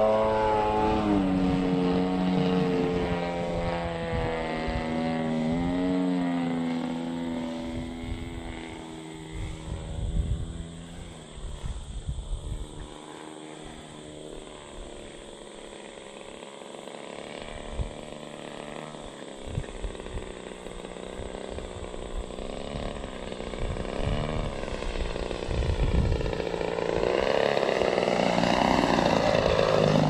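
Propeller and motor of a large radio-controlled Hangar 9 Timber 110 plane flying overhead: its pitch wavers and fades as it moves away, then it grows louder again as the plane comes in low near the end. Gusts of wind rumble on the microphone throughout.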